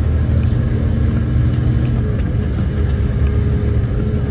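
Off-highway logging truck's diesel engine running steadily under way, a deep, even rumble with a constant engine tone.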